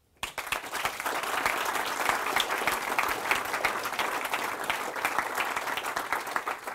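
Audience applauding: many people clapping at once, starting suddenly and holding steady.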